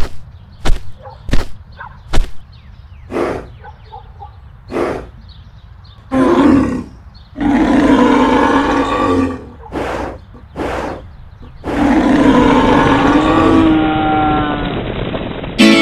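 Animal roar sound effects, voiced for a clay bull: three long, deep roars, after a run of sharp single knocks in the first five seconds and two more knocks in the middle.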